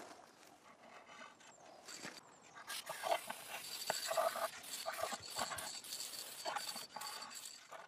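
Aerosol spray can hissing in repeated short bursts, starting about three seconds in.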